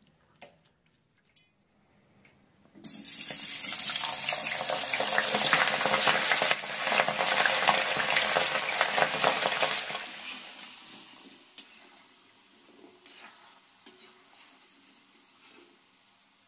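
Whole peeled potatoes deep-frying in hot oil: a loud, even sizzle that starts suddenly about three seconds in and dies away after about ten seconds, leaving faint taps.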